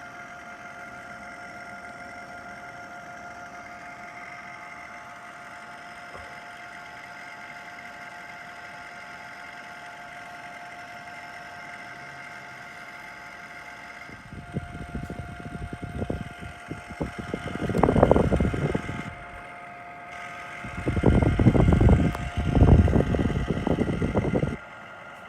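Air conditioner running with a steady whining hum, then two loud spells of rattling and grinding about two thirds of the way in and near the end. This is the abnormal noise of a failing motor, which was replaced to cure it.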